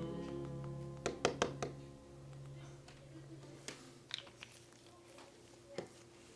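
Background acoustic guitar music with held notes that thin out after about two seconds. About a second in, a quick run of three or four sharp clicks sounds, and a few fainter ticks follow later.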